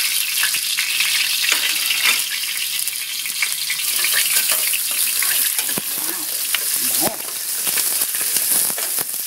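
Chopped onion and garlic sizzling in hot oil in a stainless steel pan, with a utensil stirring them and tapping and scraping against the pan several times.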